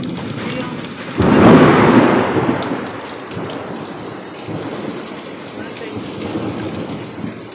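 A thunderclap about a second in, rumbling and fading away over a couple of seconds, over steady rain.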